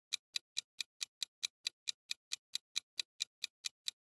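Clock-ticking sound effect of a quiz countdown timer: fast, even ticks, about four and a half a second.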